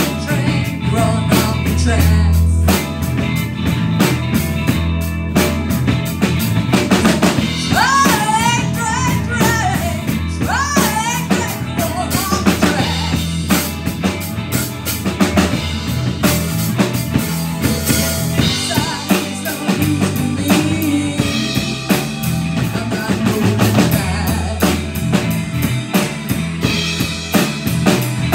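A live rock band playing, with the drum kit to the fore over electric guitar, electric bass guitar and keyboard.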